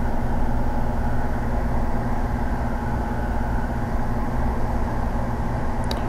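Heat gun running steadily with an even motor hum and rush of blown air, heating an adhesive-lined heat-shrink boot to shrink it down over the back of a coaxial connector.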